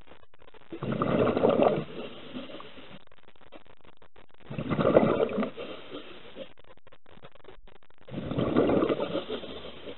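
Scuba diver's exhaled bubbles rushing out of the regulator underwater: three bubbling bursts of about a second each, roughly every three and a half seconds, with quiet between.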